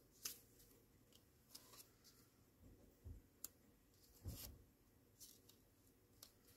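Faint rustling and light taps of paper cut-outs being slid and pressed into place on a planner page, with a few soft thumps, the loudest about four seconds in.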